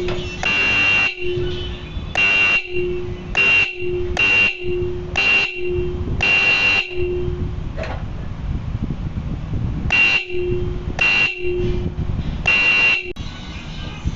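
Life-Tec bike horn sounding in a series of short blasts, with a shrill high tone and a lower tone in turn. There is a pause of about three seconds midway before the blasts resume.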